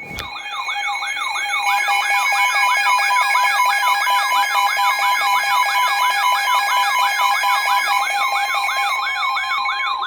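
Electronic siren in a fast yelp, its pitch sweeping up and down about three times a second over a few steady high alert tones, loud and swelling over the first couple of seconds.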